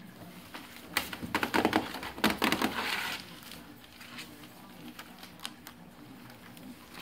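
Newspaper rustling and crackling under the paws of Labrador retriever puppies as they scramble over it, with scattered small scratches and clicks and a louder spell of crumpling from about one to three seconds in.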